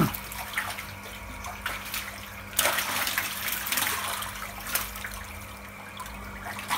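Shallow pond water splashing and sloshing as a long-handled scoop is pushed and lifted through it and feet move in the water, with a few sharper splashes, the strongest about two and a half seconds in.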